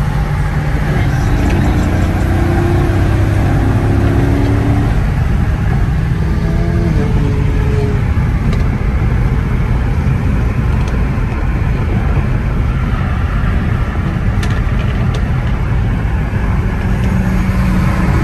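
Steady in-cabin road noise and engine drone of a Dodge SRT car cruising at highway speed.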